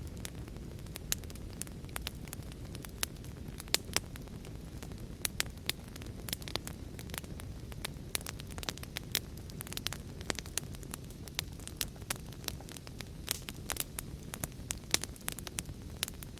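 Wood fire crackling: irregular sharp pops and snaps, several a second, over a steady low rush of burning.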